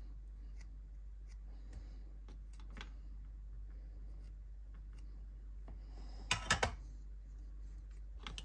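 Small handling sounds at a soldering bench: faint ticks and rustles while transistor leads are tinned with a soldering iron, then a quick cluster of three or four sharp clicks a little past six seconds in and one more near the end, over a low steady hum.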